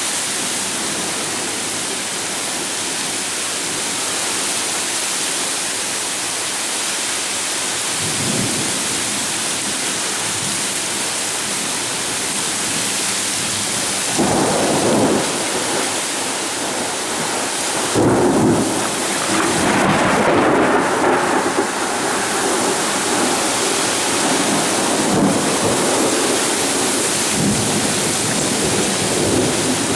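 Heavy rain pouring steadily during a thunderstorm, with rolls of thunder rumbling up about eight seconds in, again around fourteen seconds, and loudest from about eighteen seconds on.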